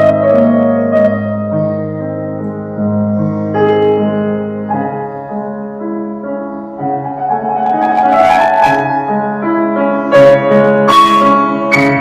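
Live keyboard music: full held chords that change every second or two, with a few sharp percussive hits over the last few seconds.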